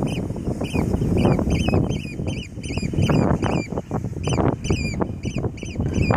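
A bird calling over and over, short calls that bend in pitch, about three a second with a brief pause about two seconds in. It is agitated by the quadcopter flying near it. Wind buffets the microphone underneath.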